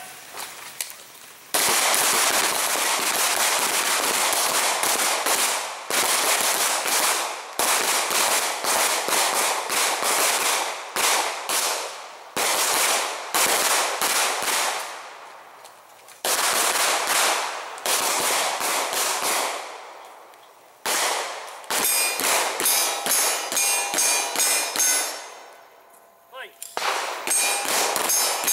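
Several semi-automatic pistols firing from a line of shooters in rapid, overlapping volleys of shots, starting about a second and a half in, with brief lulls between bursts.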